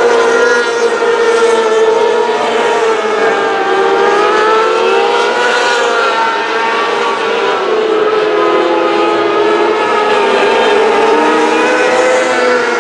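Several micro sprint cars' motorcycle-derived engines running hard at high revs, their overlapping high-pitched notes rising and falling as the cars circle the track.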